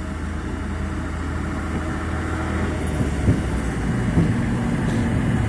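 Diesel engine of a yellow WM-15 track maintenance motor trolley running as the trolley approaches and passes along the platform, a steady low hum that grows louder, with a couple of short knocks about three and four seconds in.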